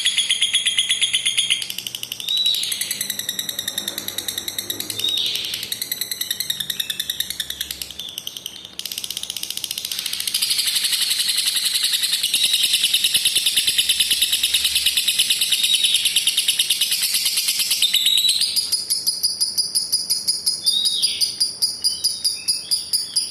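Lovebird singing its long chattering trill (ngekek): high-pitched, fast pulsed trilling held for many seconds at a time, with a few short rising chirps between trills. It breaks up into chirps and softer trilling about two seconds in, resumes as one long trill from about ten seconds in, and drops lower in pitch with more widely spaced pulses near the end.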